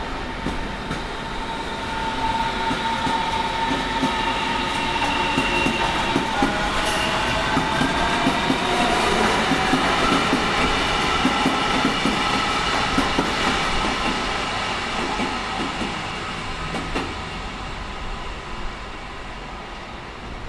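A Berlin S-Bahn electric multiple unit runs past, its traction motors giving a whine of several tones that rise in pitch, over wheel clatter on the rails. It is loudest about halfway through and fades as the train draws away.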